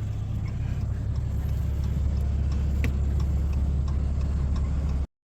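A vehicle running with a steady low rumble and a few faint ticks. It cuts off suddenly about five seconds in.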